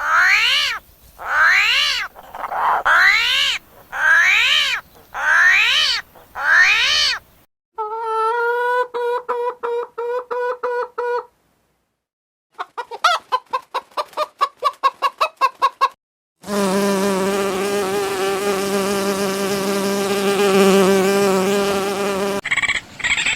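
Several different animal calls in turn, cut together: about six rising-and-falling chirps, then fast pulsed calls, rapid clicking, and a steady buzzing drone for several seconds near the end.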